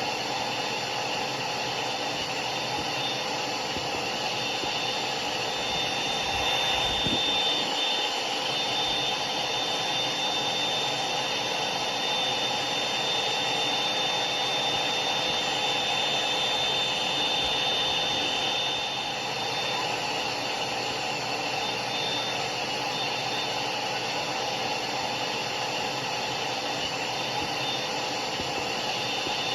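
Hair dryer running steadily: a constant rushing blow of air with a thin high whine from the motor over it.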